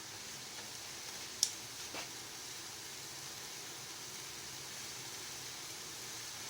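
Steady hiss of a pot of cauliflower boiling on the stove, with a sharp click about a second and a half in and a fainter one half a second later.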